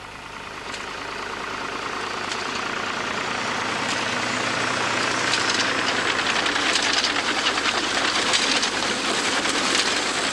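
McCormick tractor engine running as it pulls a reaper-binder through standing corn, with the binder's cutter, canvases and reel mechanism clattering rapidly. The sound grows steadily louder as the machine comes close.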